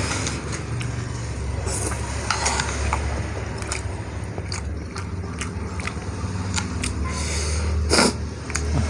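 Close-up eating of saucy instant noodles: an eating utensil clicking against the bowl, with wet slurping and chewing. A louder noisy burst comes about eight seconds in, over a steady low hum.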